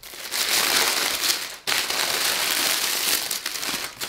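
Thin white tissue paper crinkling and rustling as it is pulled open and handled, with a brief pause about one and a half seconds in.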